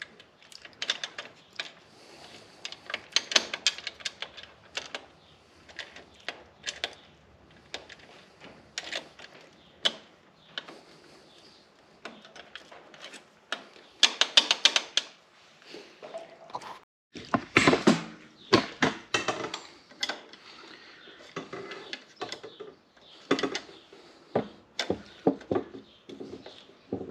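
Irregular clicks, taps and knocks of hand tools and small metal and plastic parts being worked loose on a motorcycle's handlebar clamp and its covers, with louder flurries about halfway through and again a few seconds later.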